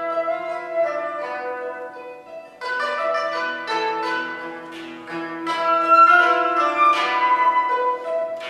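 Koto, the Japanese long zither, playing a plucked passage: groups of ringing notes that fade between fresh strokes, with new strokes about a third of the way in, past halfway and near the end.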